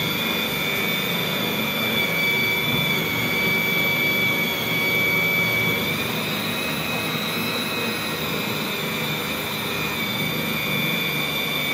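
Small electric food processor running steadily with a high whine as it chops a crumbly mixture.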